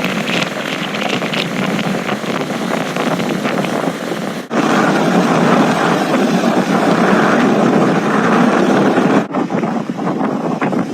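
Strong storm wind rushing and buffeting across the microphone, a loud, steady rushing noise. It jumps louder about four and a half seconds in and changes again near nine seconds, as one clip gives way to another.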